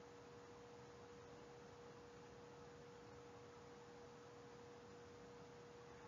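Near silence: a faint steady tone at one pitch over light hiss, the recording's background noise.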